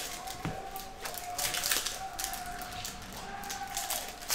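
Baseball card boxes and foil packs being ripped open and handled: repeated crinkling and tearing of wrappers and cardboard with a few sharp taps.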